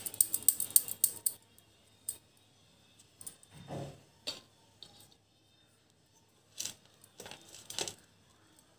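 Light metallic clinking and tapping from hands rolling milk-powder peda dough between the palms and taking more from a steel plate. A quick run of clinks comes in the first second or so, a scattering follows, and there is another cluster near the end.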